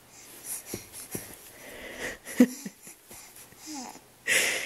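Baby's small grunts and breathy sounds while kicking his legs, a few brief pitched noises spread through, ending in a short hissy rush of breath.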